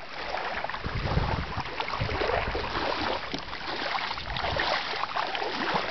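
Water sloshing and splashing, with wind gusting on the microphone, strongest about a second in.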